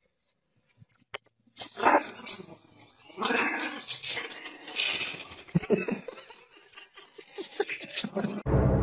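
Small dog barking and growling repeatedly, starting about a second and a half in. Music begins just before the end.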